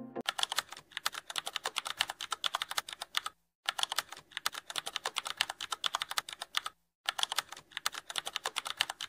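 Computer keyboard typing sound effect: rapid runs of key clicks, broken by two short pauses.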